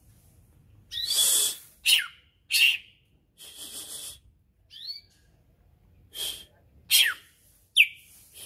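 Caged male green leafbird (cucak ijo) calling in a string of about eight loud separate notes. Some are harsh and hissy, and a couple are quick falling whistles, with short pauses between them.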